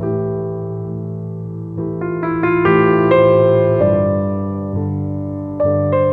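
Background piano music: held chords with a melody of single notes stepping in over them about two seconds in, and a new chord near the end.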